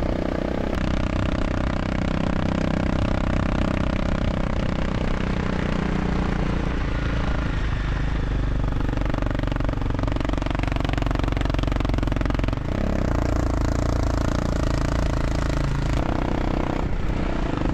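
Honda CRF250 Rally's single-cylinder engine running under way on a gravel road, heard from right on the bike. Its pitch shifts up and down several times as the engine speed changes.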